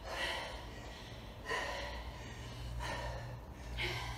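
Heavy, gasping breaths of a person winded from a hard round of exercise, four breaths in a row about a second and a half apart.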